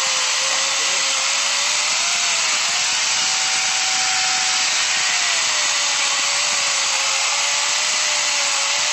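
Angle grinder converted into a chainsaw, with a 12-inch bar and chain, running steadily while cutting through a log. Its whine drops in pitch as the chain bites into the wood and rises again when the cut eases, briefly about two seconds in and again for a while around four to five seconds in.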